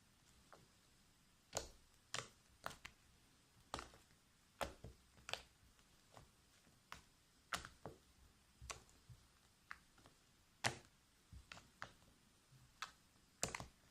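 Fluffy slime being kneaded and stretched by hand, giving faint, irregular sharp clicks and pops, about one or two a second.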